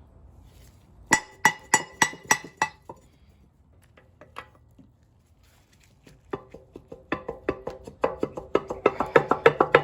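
Hammer striking a metal engine part to knock it loose off its drilled-out bolts. There is a quick run of ringing metallic taps, a pause, two more, then a faster and harder series of ringing blows near the end.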